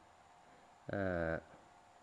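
A man's voice drawing out a single hesitation sound for about half a second, about a second in; otherwise faint room tone.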